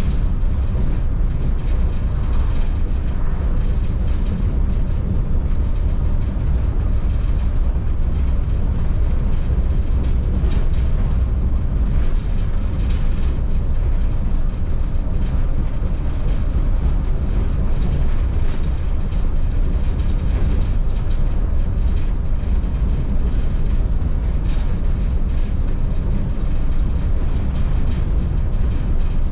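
2002 MCI D4500 coach conversion driving at steady speed. Its low engine rumble is mixed with an even road and tyre noise, unchanging throughout.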